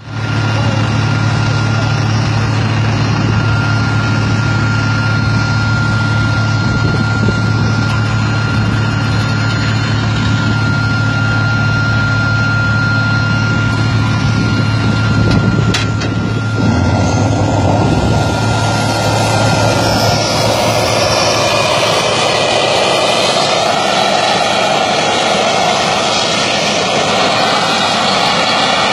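MiG-23BN's Tumansky R-29B-300 turbojet running on the ground during an engine test run: a loud, steady jet noise with a low hum and a thin high whine. About halfway through the whine drops out and a broader rushing noise grows.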